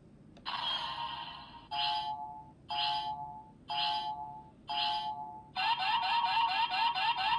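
Bandai DX Chemy Riser toy transformation belt playing electronic sound effects through its speaker: a click, a short burst, then a two-tone chime repeating about once a second four times. Near the end a fast, rhythmic electronic loop takes over.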